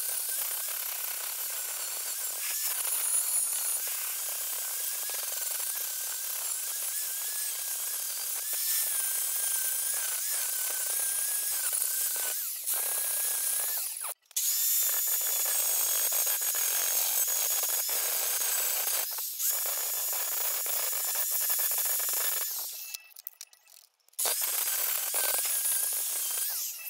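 Angle grinder with an abrasive disc grinding down weld seams on the steel A-pillar of an Opel Manta B, tidying the repair. It runs steadily with a high whine, stops briefly about halfway, then stops again near the end before one last short run.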